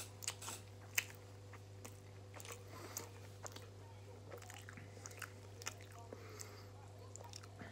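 A person chewing and biting food close to the microphone, with many short sharp mouth clicks, the loudest about a second in. A steady low hum runs underneath.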